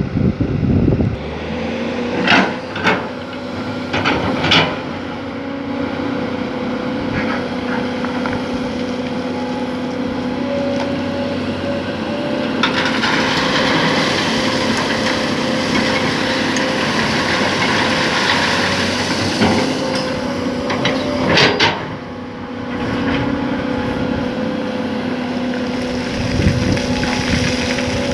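Hydraulic excavator's diesel engine running steadily. A hiss rises over it for several seconds in the middle, and there are a few sharp knocks in the first five seconds and another in the last third.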